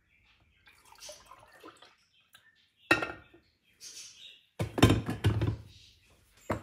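Coffee poured from a glass carafe into a ceramic mug, followed by a sharp knock and then a louder clatter of glass and plastic as the carafe is set back into the drip coffee maker.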